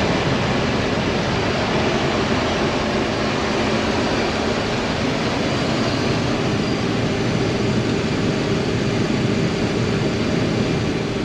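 Combine harvester running under load while cutting wheat: a steady, even drone of engine and threshing machinery.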